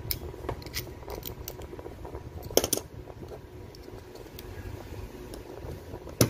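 Small clicks and taps of a precision screwdriver and the plastic casing of a phone charger being handled, with a sharper click about two and a half seconds in and another near the end, over a steady low hum.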